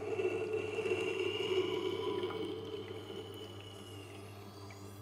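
Tormek T-8 wet grinder running, a knife edge grinding against its turning wet grindstone. There is a steady motor hum under it, and the grinding fades after about three seconds.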